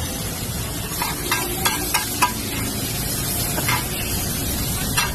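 Noodles sizzling on a large flat street-food griddle, with a metal spatula clacking and scraping against the griddle as they are tossed and mixed. The clacks come in a quick handful in the first half and again near the end.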